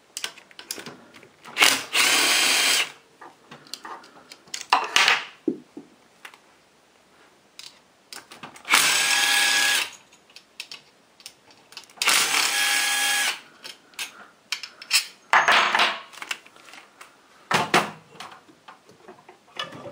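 Cordless drill-driver spinning out the side-cover bolts of a 156FMI motorcycle engine. It runs in about four spells of a second or so, with a few short blips and small handling clicks between them.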